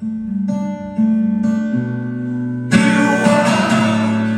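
Acoustic guitar played live: a few single notes picked one after another, then full chords strummed from nearly three seconds in.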